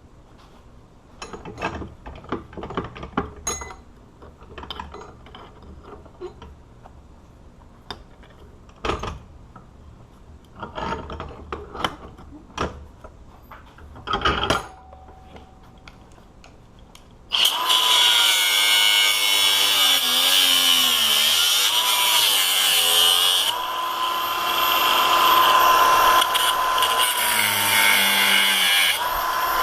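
Metal lock parts clicking and knocking as they are handled, then a little past halfway a cutoff wheel starts and runs loud and continuous, cutting into the steel disc padlock, its whine dipping and wavering as it bites into the metal.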